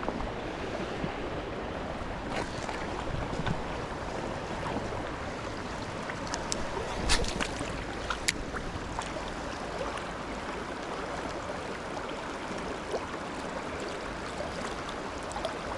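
Steady rush of river water flowing over rocks, with a few sharp clicks scattered through it.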